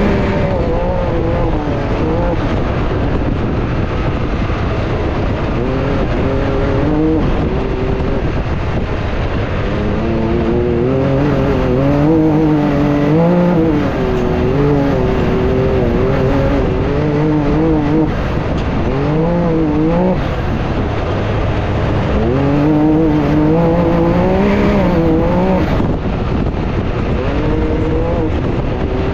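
Can-Am Maverick X3 turbo side-by-side's three-cylinder engine heard from the cockpit, driven hard over a dirt track. Its pitch rises and falls again and again as the throttle is opened and lifted, over a constant noise of tyres and gravel.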